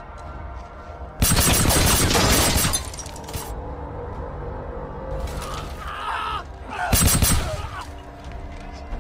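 Action-film soundtrack: tense background music cut by two bursts of rapid automatic gunfire, a long one about a second in and a shorter one near the end.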